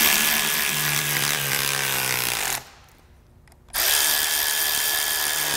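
Cordless electric ratchet running in two long bursts about a second apart, driving valve cover bolts down. The motor note drops toward the end of the first run as the bolt draws tight.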